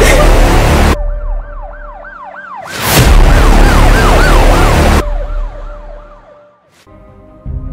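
A siren wailing up and down quickly, about three cycles a second, twice drowned out by loud bursts of noise lasting about one and two seconds. It fades out, and near the end music with held, sombre tones begins.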